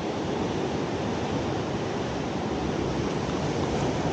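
Steady rushing noise of sea surf, mixed with wind.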